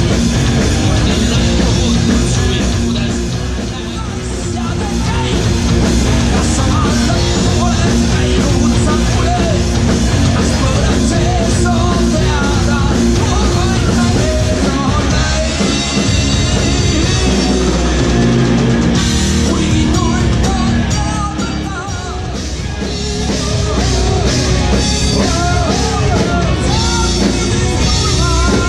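Live heavy rock band playing loud: distorted electric guitars, a pounding drum kit and a singer shouting into the microphone, with the crowd's noise mixed in. The band plays without a break, easing back briefly twice.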